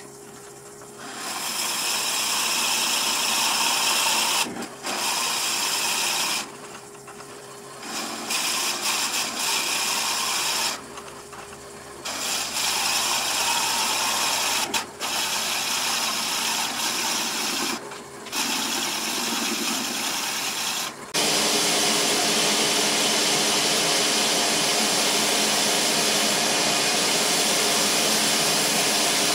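Wood lathe spinning a wooden workpiece while a drill bit in a hand-held chuck bar bores into it: a loud cutting noise that comes in several bursts of a few seconds each, with the lathe's steady hum in the pauses between. From about three quarters through, an even, unbroken noise over a steady hum, as sandpaper is held to the spinning wood.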